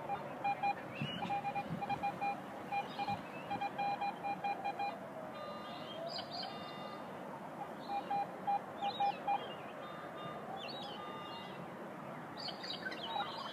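Metal detector beeping in quick runs of short, same-pitched tones as its coil is swept over the ground, with a gap of a few seconds in the middle and a few higher tones. Birds chirp in the background.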